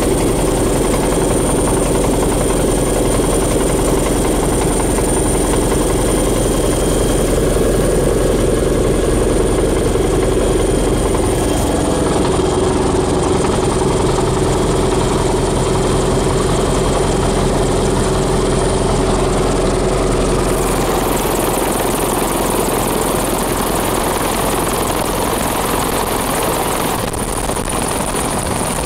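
Bell 412 helicopter heard from inside the cockpit: its twin turboshaft engines and main rotor running steadily, with a high thin whine over the drone, during the approach to a ship's helideck. The lower tones of the drone fade about twenty seconds in.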